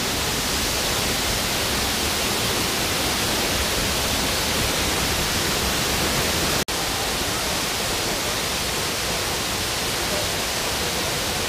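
Steady rushing of a waterfall and stream, broken once by a momentary gap about two-thirds of the way through.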